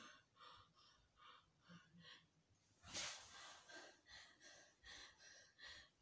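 Near silence, with faint short puffs of breath repeating every half second or so and a slightly louder one about three seconds in.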